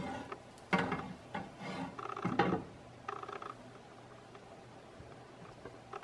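Glass pan lid lifted off and set back on a nonstick frying pan, with knocks, clinks and scrapes of the lid and a plastic spatula against the pan. The loudest knocks come in the first half, then fainter short rattles.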